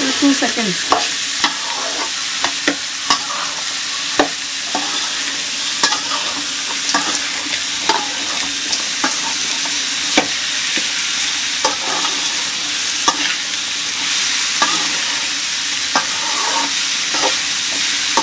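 Diced chow chow (chayote) sizzling in oil in an aluminium kadai, stirred with a slotted metal spatula that scrapes and knocks against the pan at irregular intervals, roughly once a second. It is being fried with cumin and turmeric powder to cook off their raw smell.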